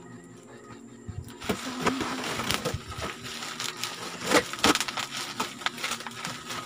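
Box cutter slicing through packing tape and cardboard on a shipping box, a dense crackling, scratching rasp with sharp ticks that starts about a second and a half in. Near the end the cardboard flaps are pulled open with scraping and rustling.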